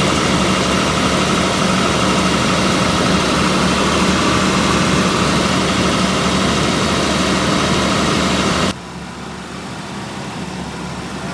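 Jaguar XJ6's straight-six engine idling unevenly, freshly started after sitting unused for years. About three-quarters of the way through, the sound drops suddenly to a quieter, duller running.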